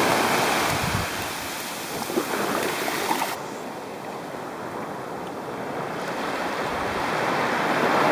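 Small waves breaking and washing up a sandy beach, the surf dipping and then swelling again near the end.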